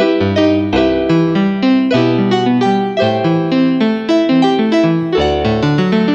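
Background music: a piano playing a quick run of notes at a steady pace.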